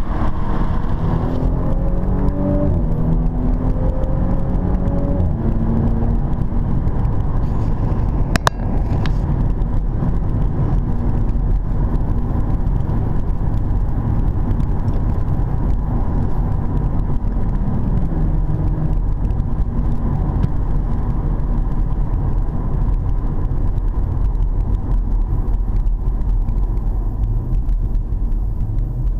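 Audi S4 B9 Avant heard from inside the cabin. For the first several seconds the engine note climbs and drops back at each upshift as the car accelerates, then settles into a steady cruising drone over low tyre and road rumble. A single sharp click comes about eight seconds in.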